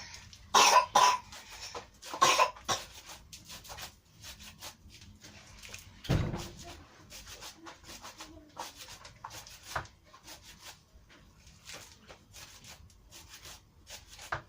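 A person coughing a few times in the first three seconds, then quieter small knocks and rustles with a dull thump about six seconds in.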